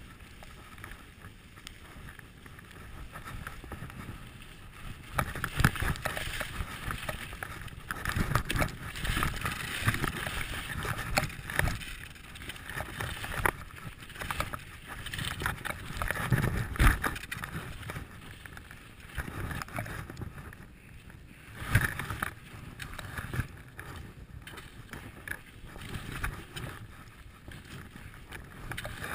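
Skis hissing and scraping over snow on a downhill run, growing louder about five seconds in and swelling and fading in uneven surges, with wind buffeting the microphone.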